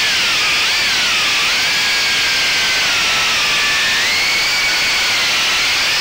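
A small FPV quadcopter's AKK 1407 3400kv brushless motors and 3-inch HQProp props whining over a steady hiss. The pitch wanders up and down with the throttle and rises steeply near the end as the quad climbs.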